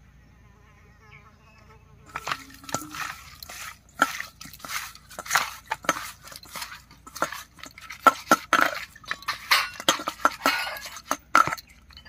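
Hands mixing whole pabda fish with salt and turmeric in a steel bowl: irregular wet squelching and rubbing, with the fish slapping against the metal bowl. It starts about two seconds in.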